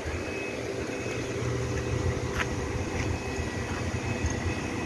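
Steady machinery hum with a few held tones, over an uneven low rumble of wind on the microphone; a faint click about two and a half seconds in.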